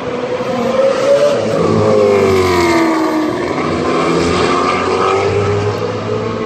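Race car engine running loud, its pitch falling over a couple of seconds, then climbing again as it revs back up.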